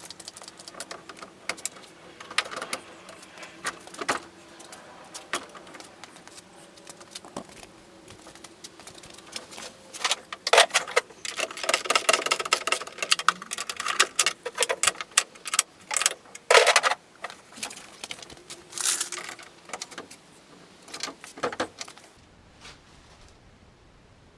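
Metal hand tools clinking, clicking and knocking while a car door's hinges are worked on and adjusted: irregular clatter, busiest in the middle, that stops about two seconds before the end.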